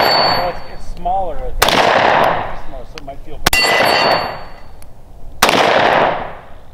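Three single shots from a Zastava M57 Tokarev pistol in 7.62x25, about two seconds apart. Each sharp crack trails off over about a second.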